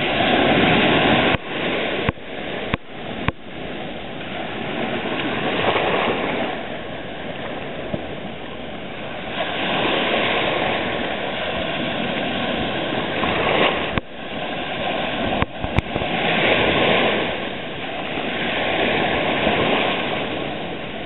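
Small waves washing onto a sandy beach in a steady rush that swells and eases every few seconds, broken by a few brief clicks and dropouts.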